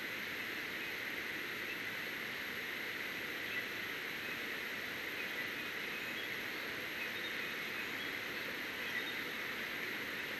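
Steady outdoor background hiss picked up by the nest camera's microphone, with a few faint, very short high chirps scattered through it.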